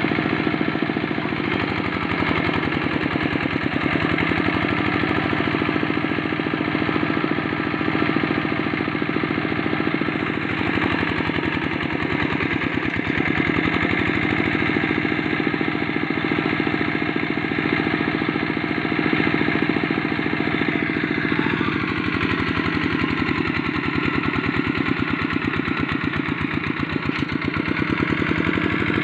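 Quick hand tractor's single-cylinder diesel engine running under load while ploughing deep paddy mud. Its steady beat sags in pitch and recovers several times as the engine labours in the mud.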